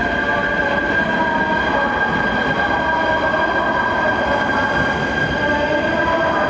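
JR 115-series electric train running, with a steady high-pitched squeal and a few wavering tones over the rumble of the wheels.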